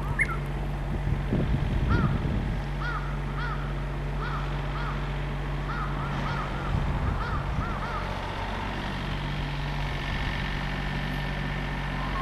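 A bird calling over and over: a long series of short, arching notes at about two a second, over a steady low hum.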